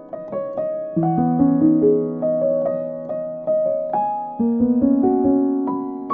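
Background music: a gentle piano piece, a slow melody of single struck notes fading over held lower chords.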